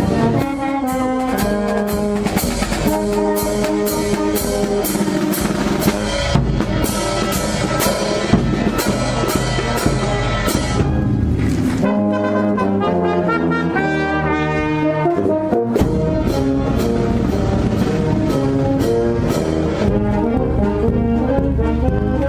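Marching brass band playing, with trumpets and horns carrying the tune over a tuba bass line and a steady snare drum beat. Around the middle the low notes thin out for a few seconds, then return.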